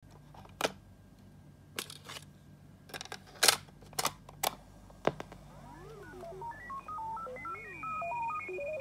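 A run of sharp plastic clicks as the keys of a portable cassette player are worked. About five and a half seconds in, the tape starts playing a pop song intro of stepping electronic synth notes and gliding sweeps, growing louder.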